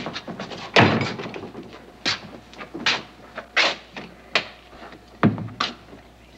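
A scuffle: a string of separate thuds and knocks, about seven over six seconds, the heaviest about a second in and the rest lighter, like bodies bumping a wooden wall and door.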